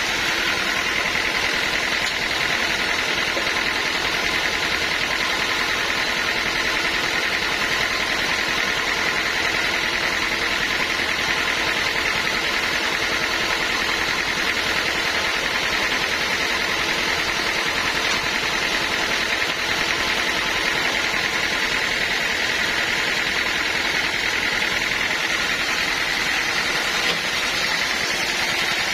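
Sawmill machinery running steadily, an even, unbroken mechanical noise with a high whine on top.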